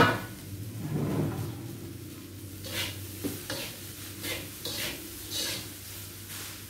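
Slotted metal spatula stirring and turning fried rice in a wok, scraping the pan about every half second while the rice sizzles. A sharp clank of spatula on wok right at the start is the loudest sound.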